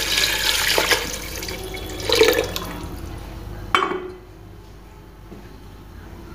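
Water poured from a jug into a steel pressure cooker, splashing onto pieces of meat, with a couple of sharper splashes before the pouring stops about four seconds in.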